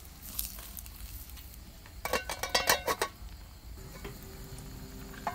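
A metal ladle stirs wet chopped vegetable stems in a metal pot, with a run of quick clanks and scrapes against the pot about two seconds in. A metal lid is then handled on the pot, with a louder clank at the very end.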